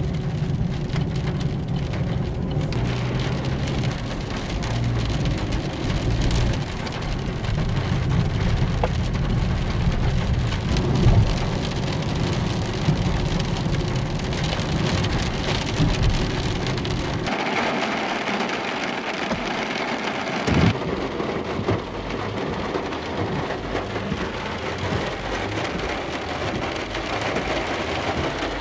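Heavy rain on a car's windscreen and body during a thunderstorm, a steady hiss over a low rumble. The sound changes abruptly for a few seconds past the middle, then returns.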